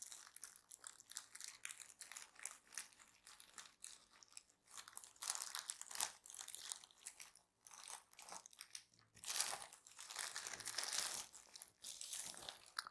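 Plastic courier mailer crinkling and rustling as it is cut open with scissors and the wrapped box inside is pulled out: irregular crackles, louder about halfway through and again near the end.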